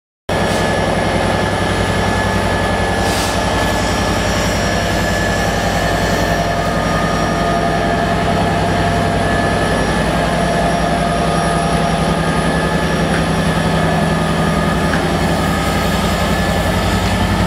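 Class 67 diesel locomotive's EMD two-stroke V12 engine running steadily as the locomotive moves slowly past, a loud low drone of several steady tones with a faint high whine over it.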